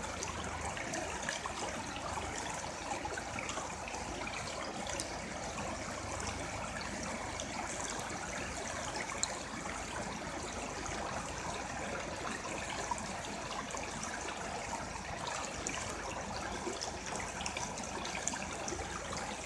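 Rocky hill river running over and between boulders: a steady, even sound of flowing water.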